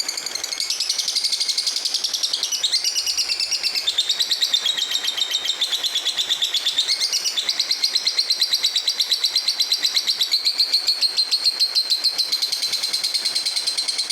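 Lovebird in full song: a long, unbroken chattering trill of rapid repeated high notes that shifts up and down in pitch every second or two.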